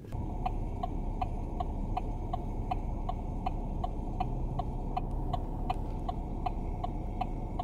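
A car's indicator flasher ticking steadily, about three clicks a second, over the low rumble of the vehicle cabin.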